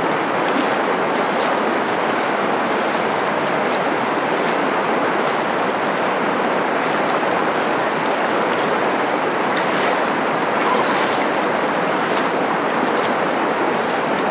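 A stream rushing over stones, a steady even rush of water.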